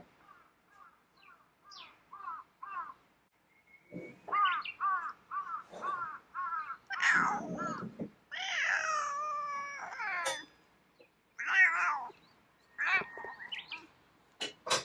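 Black-and-white cat vocalising: a run of short chirping 'au au' meows, about two or three a second, faint at first and louder from about four seconds in. A few longer, drawn-out meows follow, and a sharp click comes near the end.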